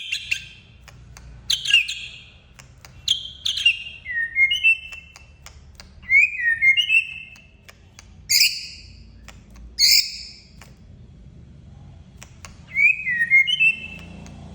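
Male white-rumped shama singing loud, varied phrases: clear whistled slurs mixed with a few short, harsh notes, each phrase separated by a brief pause.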